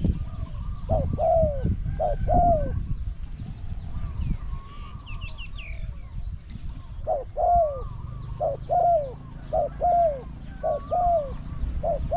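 Spotted dove cooing in short-then-long falling phrases. One group comes about a second in, and a longer run of repeated phrases starts about seven seconds in. Faint chirps of other small birds sound between them.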